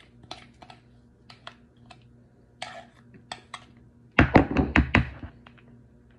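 Utensils at work: a metal spoon clicking and tapping against a glass measuring cup and a plastic mixing bowl while scraping out brown sugar, then a quick run of loud knocks a little after four seconds in.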